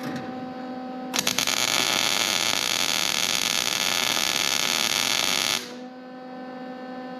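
Welding arc crackling steadily for about four and a half seconds, starting with a few sharp snaps as it strikes and then cutting off: a plug weld being laid through a drilled hole to join a replacement floor pan to the frame. Before and after the weld there is a steady electrical hum.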